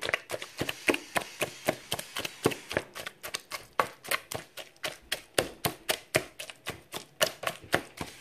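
Small wooden pestle pounding boiled garden eggs and hot pepper in a plastic bowl, mashing them: a quick, even run of knocks, about five a second.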